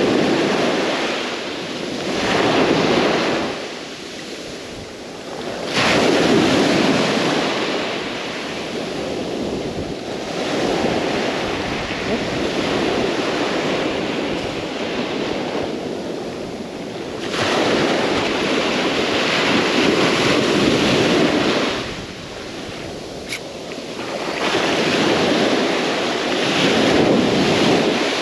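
Ocean surf breaking on a beach. The wash of the waves swells and fades about every five or six seconds.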